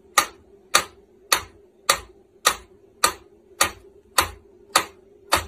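Mechanical pendulum metronome ticking at a steady beat, a little under two sharp ticks a second.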